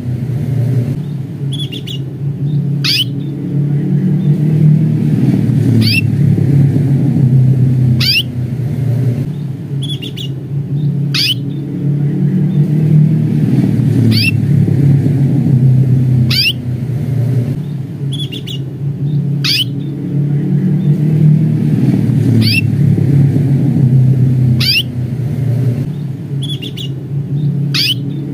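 Domestic canary giving its short, high 'cuit' call, about one every three seconds, over a steady low rumble.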